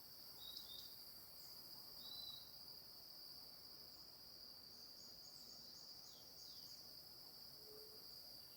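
Faint, steady high-pitched chorus of insects, with a few short chirps over it, the clearest about half a second in and about two seconds in.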